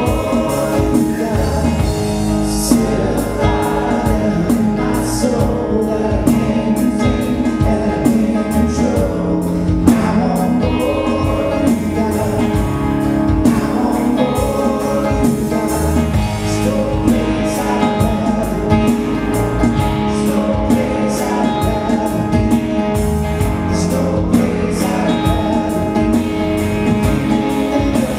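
A praise band playing a worship song: guitars, bass guitar and a drum kit, with male voices singing.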